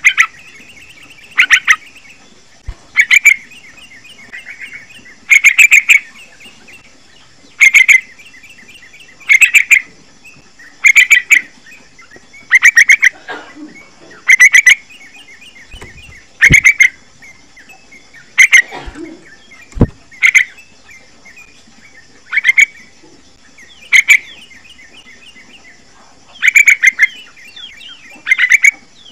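Young yellow-vented bulbul (trucukan) calling: short bursts of rapid chattering notes, roughly one every one and a half to two seconds, over a steady high insect drone. Two brief low knocks sound about two-thirds of the way through.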